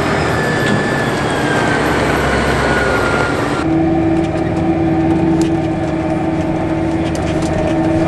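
Farm vehicle running loudly: a rushing noise with a faint, slowly falling whine, which changes abruptly about three and a half seconds in to a steady engine drone with a strong hum.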